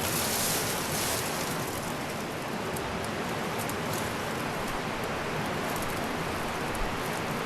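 Steady rushing of a fast-flowing mountain river, an even roar of water with no break.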